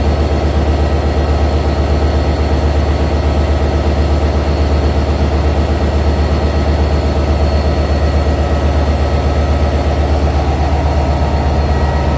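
EMD GT42ACL diesel-electric locomotive's engine running steadily with a deep, rapidly pulsing hum and faint steady high-pitched whines above it.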